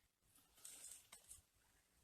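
Near silence: a pause with a faint breathy hiss and one soft click.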